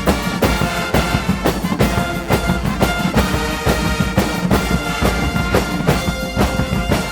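Guggenmusik band playing loud brass music: trumpets and trombones over drums keeping a steady beat.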